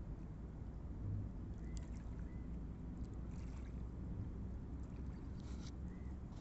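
Steady low seaside rumble of wind and water, with a few faint clicks and small chirps.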